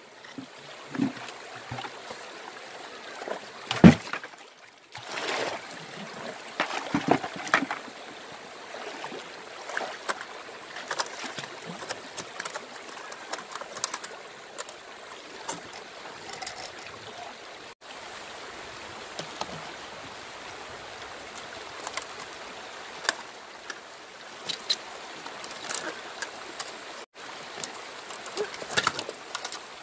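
Shallow stream water running and trickling, with scattered small splashes and knocks from wading and handling gear in the water. About four seconds in comes one sharp knock, the loudest sound.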